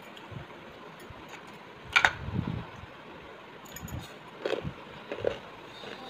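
A few light clinks and taps of stainless-steel plates and bowls as food is picked up by hand, the sharpest about two seconds in and a small cluster in the second half.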